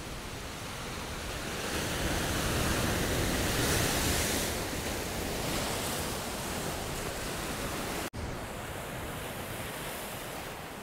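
Sea waves washing against a rocky shore: a steady rush that swells and fades again a couple of seconds in.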